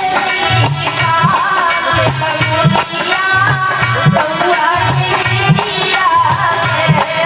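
Woman singing a bhajan at a microphone, accompanied by a hand drum playing a steady repeating rhythm.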